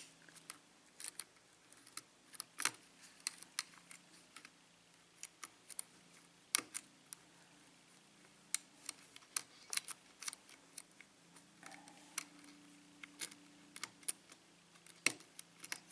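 Irregular sharp metallic clicks of a lock pick and tension wrench working the pins of a 5-pin Sargent pin-tumbler lock cylinder, one pin at a time, as the pins are lifted and set.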